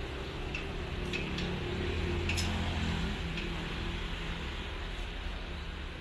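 A steady low engine hum of passing road traffic that grows louder through the middle and eases off again, with a few short high ticks over it.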